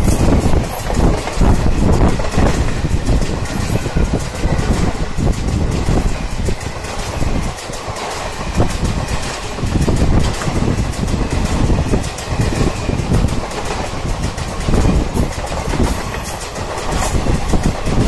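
Indian Railways passenger coaches rolling past at speed close by, with a continuous rumble and the wheels clattering on the rails.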